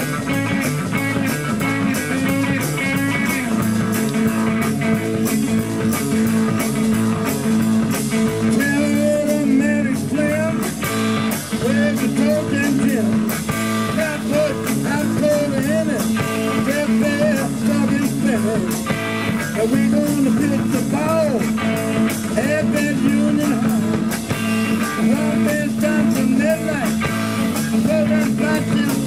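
Live blues band playing: electric guitar, electric bass and a drum kit keeping a steady beat, with a man singing.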